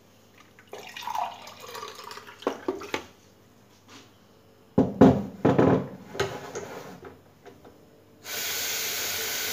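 Water poured from a plastic filter pitcher into a mug. A few seconds later come loud knocks and clatter, and near the end a steady hiss starts abruptly.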